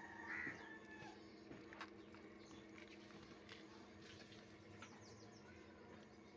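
Near silence with a low steady hum. A brief high animal call comes about half a second in, and a few faint knocks follow.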